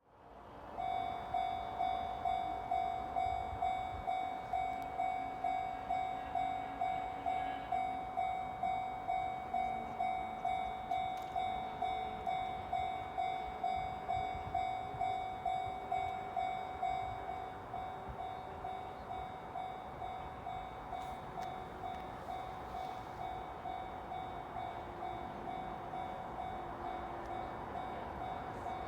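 Japanese railway level-crossing warning bell ringing over and over at an even rate, a steady ringing tone with every stroke alike. It gets a little quieter about two-thirds of the way through.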